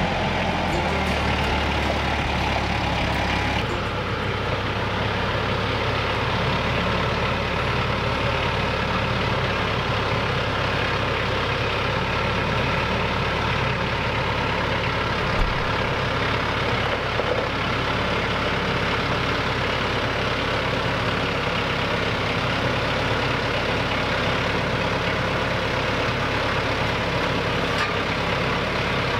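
Compact tractor's diesel engine running steadily, with one brief knock about halfway through.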